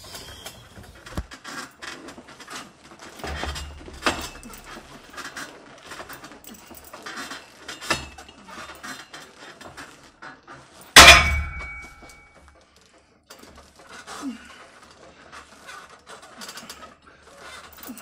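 Gym sounds of handled metal equipment: scattered knocks and clatter, and about eleven seconds in one loud metallic clang that rings on briefly.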